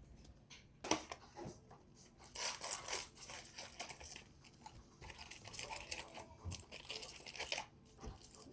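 Trading card packaging being torn open and crinkled, in irregular crackling bursts starting about a second in.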